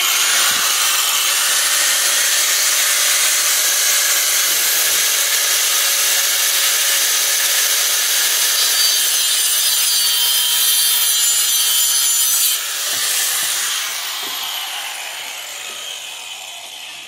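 Small angle grinder with a diamond blade cutting through steel-reinforced half-inch hydraulic hose: a loud, steady grinding that starts abruptly and holds for about twelve seconds. Then the grinder is released and winds down, its pitch falling as it fades over the last few seconds.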